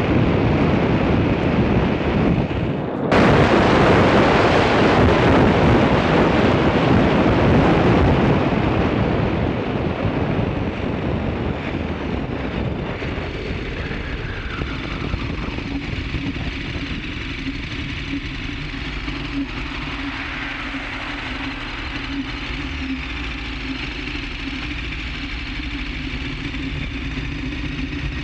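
Wind rushing over the microphone and tyre noise on asphalt from a moving camera, jumping louder suddenly about three seconds in and easing off after about eight seconds. In the second half a steady engine hum runs underneath.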